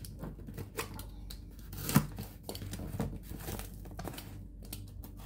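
A taped cardboard box being cut and peeled open by hand: irregular scrapes, taps and rustling of cardboard and packing tape, with one sharper knock about two seconds in.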